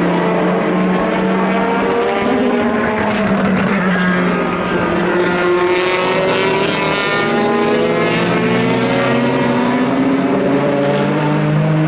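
Endurance racing cars' engines running hard, several engines heard at once, their pitches rising and falling as they accelerate and pass.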